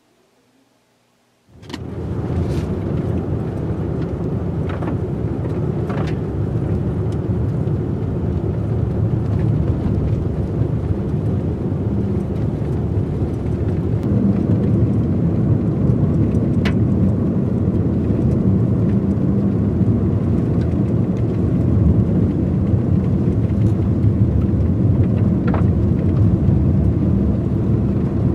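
Steady rumble of a car driving, heard from inside the cabin, with a few light ticks and knocks through it. It starts suddenly about a second and a half in.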